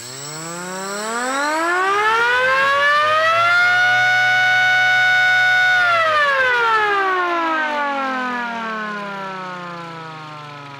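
3D-printed siren driven by an RC-car-style electric motor, spinning up into a loud wail that rises in pitch for about four seconds, holds steady for about two, then slowly winds down as the rotor slows.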